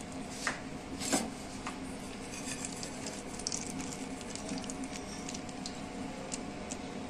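Metal bowls clinking and scraping against a cooking pan as chopped nuts and raisins are tipped into hot milk and stirred in. There are a few sharp clinks in the first two seconds, then a run of light ticks in the middle, over a steady low hum.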